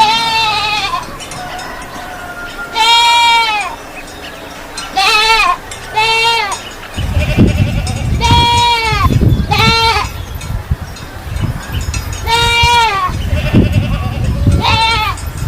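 A goat bleating repeatedly, about eight short, high calls that rise and fall in pitch. From about halfway through, a low rumbling noise runs under the calls.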